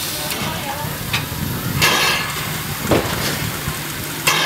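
Y542 0-6-0T steam tank locomotive standing in steam: a steady low hum with irregular short sharp puffs of steam hiss and knocks about once a second, the loudest near the end.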